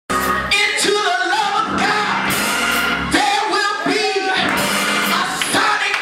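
Live gospel music: a voice singing with organ and drums in the church sanctuary.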